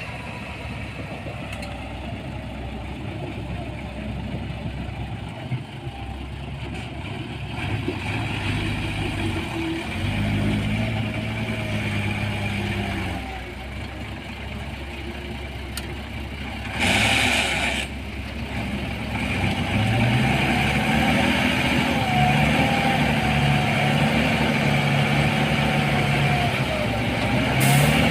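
Heavy diesel engine of earthmoving machinery running, revving up and easing off as it works, with a short loud hiss about two-thirds of the way through.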